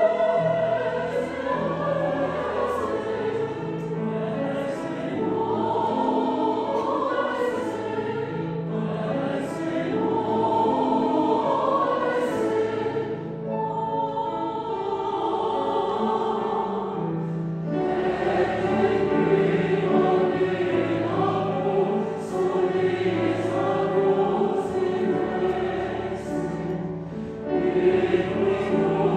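Mixed choir of women's and men's voices singing a barcarolle in harmony, with piano accompaniment carrying a lilting line of low notes beneath the voices.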